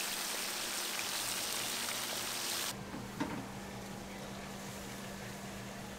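A steady, loud hiss that cuts off abruptly about two and a half seconds in, leaving a quieter background with a low steady hum and a single knock.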